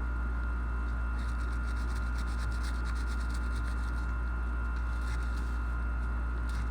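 Rapid scratchy scrubbing strokes of a coarse plastic bristle brush on gun parts. They start about a second in and stop near the end, over a steady low rumble of rain on a tin roof.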